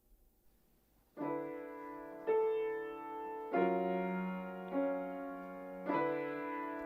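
Piano playing the intro of a ballad: full chords struck about once a second and left to ring, starting about a second in after a moment of near silence.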